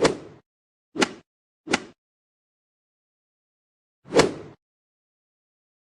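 Four heavy knocks on a door, an added sound effect: three in quick succession, then one more after a pause of about two seconds.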